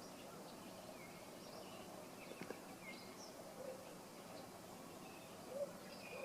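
Faint outdoor ambience with scattered short bird chirps and a low steady hiss, and a brief click about two and a half seconds in.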